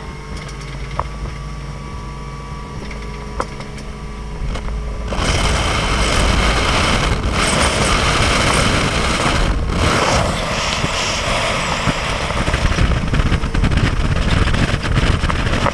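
Motorboat engine running steadily at low speed. About five seconds in, the sound steps up to a loud rush of wind and water as the boat speeds up and planes, with the engine's drone underneath.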